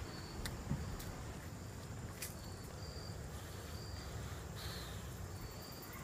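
Insects chirping outdoors, a short high chirp repeating about once a second, over a steady low rumble with a few soft clicks.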